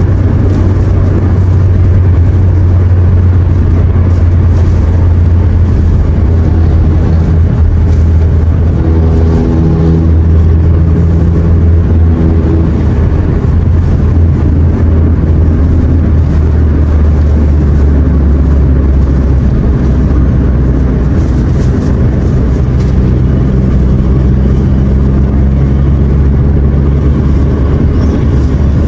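Steady low drone of road and engine noise inside a car's cabin while cruising at highway speed.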